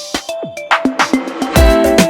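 Background music with an Afrobeat-style groove: plucked pitched notes over a beat, the drums dropping out briefly and coming back in full about one and a half seconds in.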